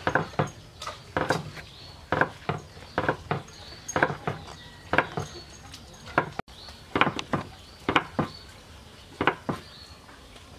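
A large kitchen knife chopping slices of fresh coconut meat into strips on a round wooden cutting board. The blade knocks on the board in a series of sharp strokes, often in pairs, about two a second, and stops shortly before the end.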